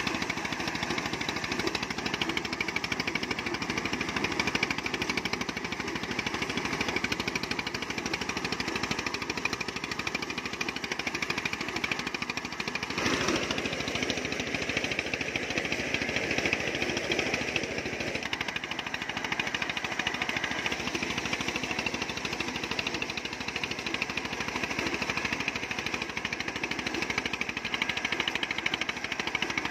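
Mobile corn sheller running: its engine and threshing drum make a loud, steady, rapid rattling clatter as shelled corn kernels pour out of the chute.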